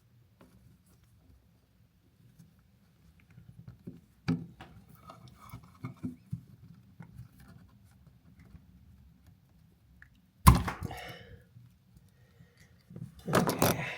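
Hand work on a wall outlet and its wiring: faint clicks and scrapes, then a sharp knock about ten seconds in with a brief rattle, and a louder clattering rustle near the end.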